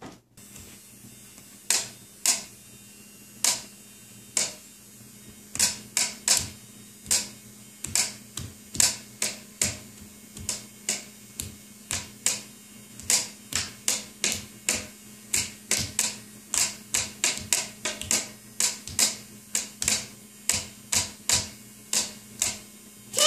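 A toddler dancing and keeping a beat with sharp slaps, scattered at first and then a steady two to three a second from about five seconds in, over a faint steady hum.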